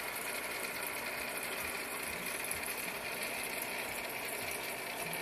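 Aquarium equipment running: a steady, fast mechanical rattle with a hiss over it.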